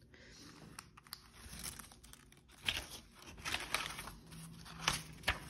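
Paper and cardstock rustling and crinkling as a handmade spiral-bound junk journal's pages are handled and turned, with a few sharp clicks and taps.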